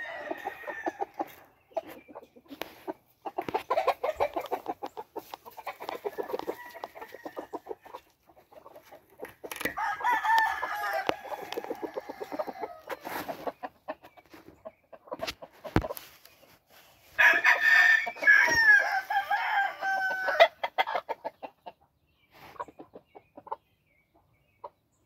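American game chickens clucking in fast runs of short notes, and a rooster crowing twice, about ten seconds in and again near eighteen seconds. Each crow lasts about three seconds.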